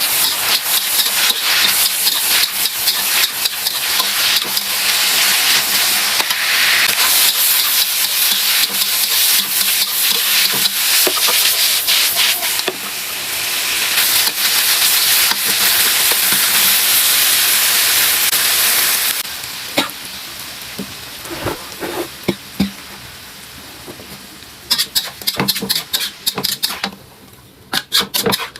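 Food frying in a hot pan, sizzling steadily while a spatula stirs it with many quick clicks and scrapes. About two-thirds of the way through, the sizzle drops away, leaving separate knocks of the spatula against the pan.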